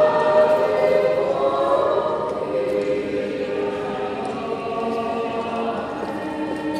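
Choir singing sustained chords in several parts, loudest near the start and then softening.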